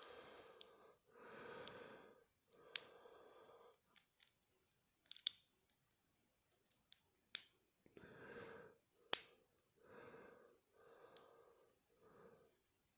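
Lock pick and tension bar working the pins of a Federal padlock: a series of sharp, separate metallic clicks, irregularly spaced about a second apart, with fainter soft sounds between them.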